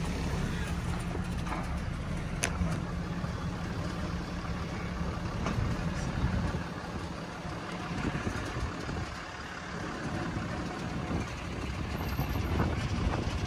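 Vehicle engine running steadily while driving down a clay track, heard from inside the cab with a window rolled down. A single sharp click about two and a half seconds in.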